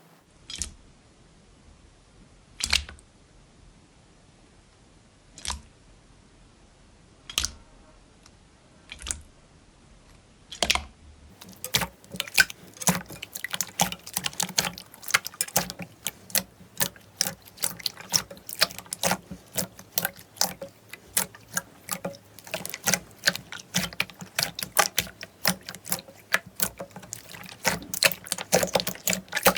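Slime being handled and squeezed: a few separate wet pops for the first ten seconds or so, then a dense run of quick sticky clicks and pops.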